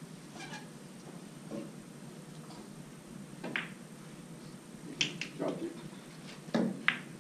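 Pool balls clacking: a few sharp clicks of cue tip on cue ball and balls striking one another during shots, most of them in a cluster near the end.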